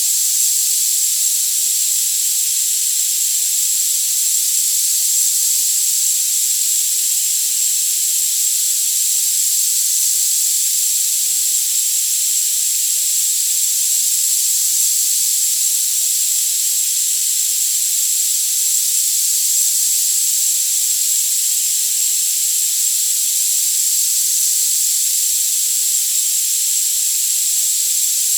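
Tinnitus-masking sound: a steady, unbroken hiss of high-frequency noise with the low end cut away, and a steady, very high-pitched tone running through it.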